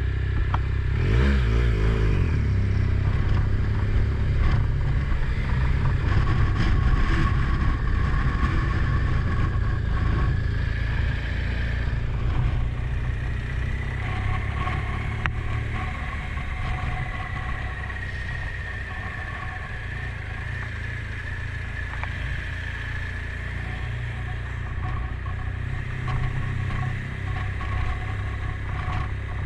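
Motor vehicle driving: steady engine and road rumble, with a faint tone that slowly drifts in pitch.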